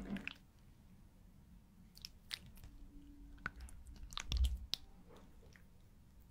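Close-miked mouth sounds: scattered soft wet clicks and small smacks, with a heavier low thump about four and a half seconds in.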